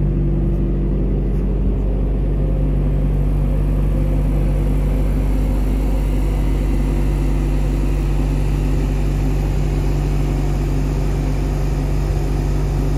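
Thermo King SLXi300 trailer refrigeration unit running at a constant speed: a steady, even engine drone with a low hum.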